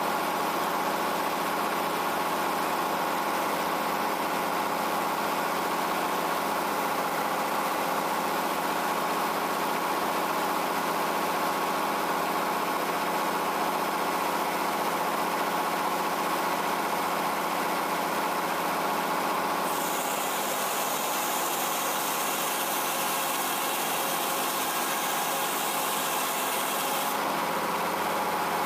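00 Frick circular sawmill running steadily on its engine power unit, the engine and big spinning saw blade humming together. From about 20 s to 27 s a higher hiss joins as the blade cuts a board off a quarter of chestnut oak.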